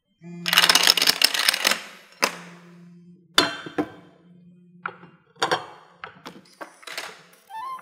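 A row of CompactFlash memory cards toppling like dominoes in a fast clatter lasting about a second and a half, set off beside a phone giving a low steady buzz. Then a string of separate sharp knocks and clacks as the parts of a chain-reaction machine strike one another, with the buzz returning briefly.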